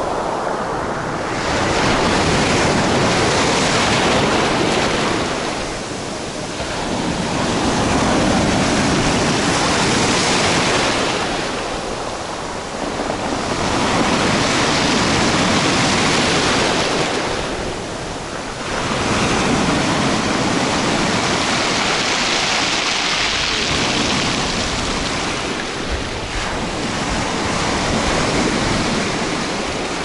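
Sea surf breaking and washing over a pebble shore close by, swelling and easing with each wave about every five to six seconds.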